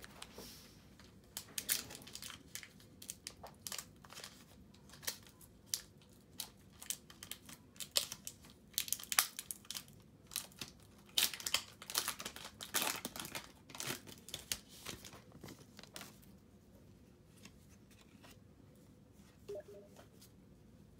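Irregular crinkling and rustling, a quick run of crackles from about a second in until about sixteen seconds, like crinkly material being handled. A faint short knock comes near the end.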